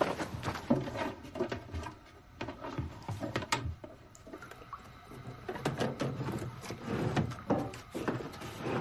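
Scattered knocks, clicks and clatter of a bathroom vanity drawer and cabinet being opened and rummaged through.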